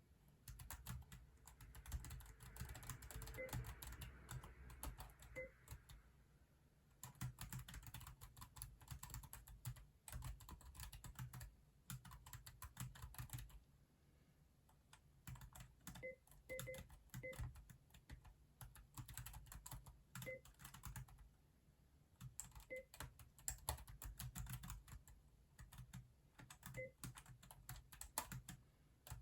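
Typing on a Keychron K6 compact mechanical keyboard: runs of rapid key clicks lasting a few seconds each, broken by short pauses.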